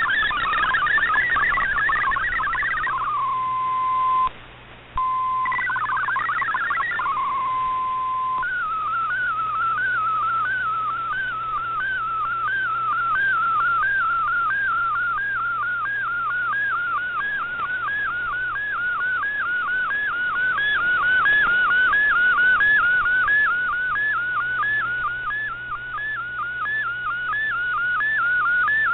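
Shortwave MFSK digital data broadcast heard through a communications receiver: rapidly hopping data tones between about 1 and 2 kHz, broken by a held single tone and a brief dropout about four seconds in. From about eight seconds in, a regular warbling chirp repeating about two times a second as an Fldigi MFSK picture is sent line by line.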